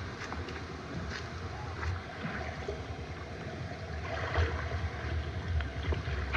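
Shallow stream water splashing and sloshing as someone wades through it with a seine net, with irregular small splashes and knocks. A low rumble sits on the microphone, from a camera held in the mouth.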